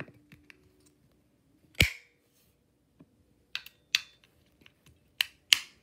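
AA batteries being pushed into a clear plastic Snap Circuits battery holder: a few sharp clicks and knocks of the batteries against the spring contacts and plastic case. The loudest click comes about two seconds in, with further pairs of clicks later on.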